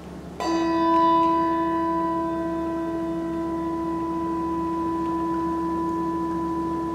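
A bell struck once, its clear tone ringing on and fading slowly.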